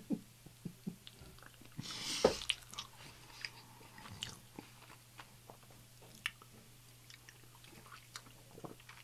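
A man's giggling dies away in a few short breaths, then a loud breathy exhale about two seconds in, followed by quiet wet mouth clicks; near the end he drinks from a soda can.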